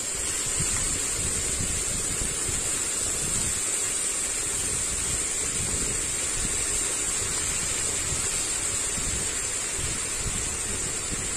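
Washed spinach sizzling in hot oil in a frying pan: a steady, even hiss.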